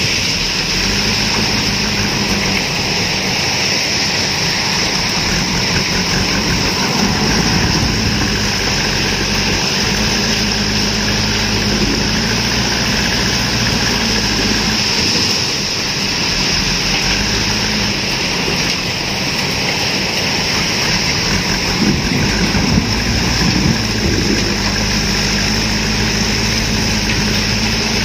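JCB 3DX backhoe loader's diesel engine running steadily while the front bucket works into a pile of stones, with a few sharp knocks from the stones about four-fifths of the way through.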